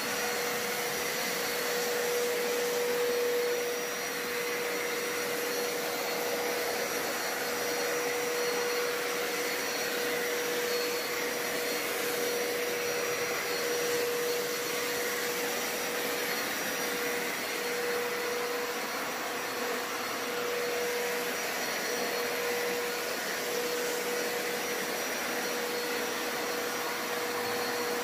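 Hoover Power Scrub Deluxe carpet cleaner running steadily, its motor giving an even whir with a steady humming tone, the loudness wavering only slightly.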